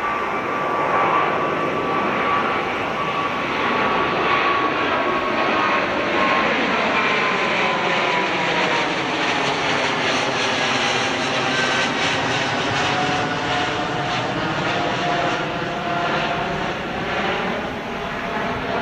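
Boeing 777-200ER airliner climbing out overhead after takeoff: loud, steady jet engine noise, with a whining tone that slides down in pitch as the plane passes over and begins to fade near the end.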